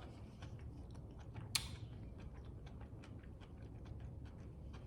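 Faint close-miked chewing: soft mouth clicks and smacks of eating, with one sharper crunch about a second and a half in.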